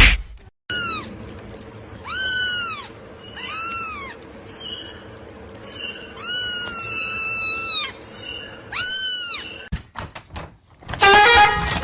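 A cat meowing, about five long drawn-out meows one after another, each rising and then falling in pitch.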